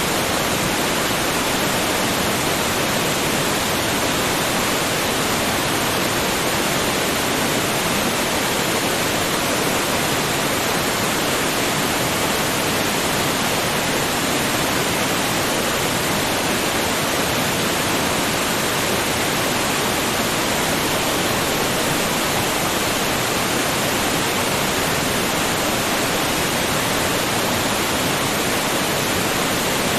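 Waterfall: water falling in a continuous, even rush that never changes.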